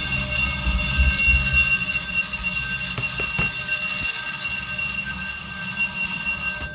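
Fire alarm system in alarm from a manual pull station, its signalling appliances sounding continuously with steady high ringing tones. The sound cuts off abruptly near the end.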